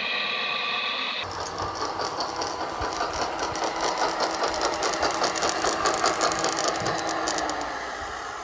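A radio-controlled Cat 963B model track loader working: small motors and hydraulic pump whirring with a fast, busy metallic rattle from its tracks and gears. About a second in, a steady high whine gives way to this rattle.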